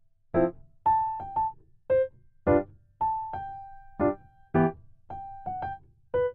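Background music: a light piano melody of separate struck notes, about two a second, some held and left to ring.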